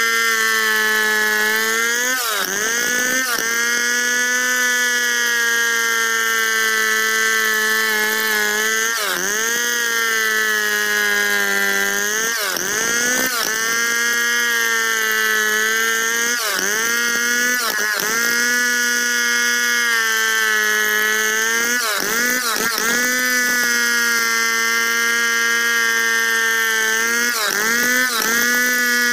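Two-stroke Stihl chainsaw running at high revs while ripping lengthwise through a log in a freehand milling cut. Every few seconds the engine pitch briefly dips and recovers, often twice in quick succession.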